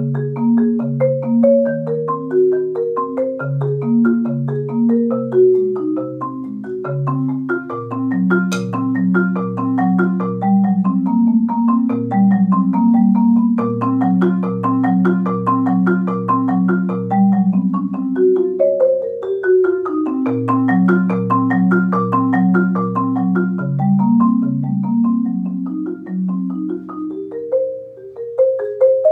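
Solo marimba played with four mallets: a steady stream of struck notes over a low bass line that moves in steps, with one sharp click about eight seconds in.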